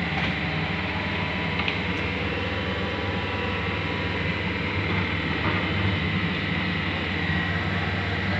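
Heavy diesel machinery running steadily, a continuous low engine drone with a faint high whine over it.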